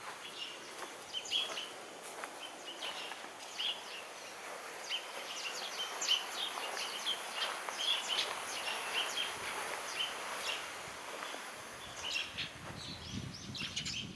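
Small birds chirping again and again in short calls over steady outdoor background hiss, with a low rumble near the end.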